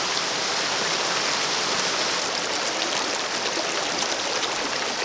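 Small rocky mountain stream running over rocks and a little cascade: a steady rush of water.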